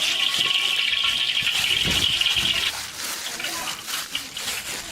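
Pork hock frying in hot oil in a wok: a loud, steady sizzle that drops off suddenly a little under three seconds in, leaving scattered pops and crackles of spitting oil.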